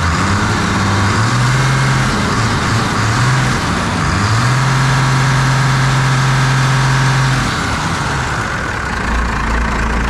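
Diesel engine with a freshly replaced injection pump, revved by hand at the pump's throttle lever. It runs up and down several times, is held at high revs for about three seconds, then drops back to idle: a test run of the new pump.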